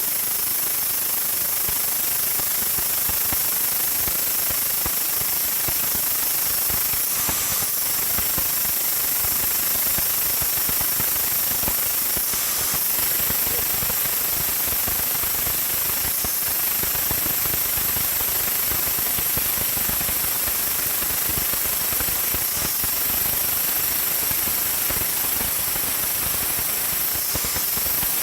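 Machine tool running steadily as it cuts out a damaged hole in an Iveco 4.5 engine casting, with a dense, fast rattle over a high hiss.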